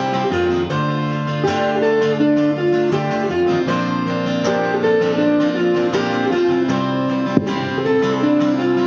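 Live band playing an instrumental break with guitar to the fore and no vocals, with a single sharp knock about seven seconds in.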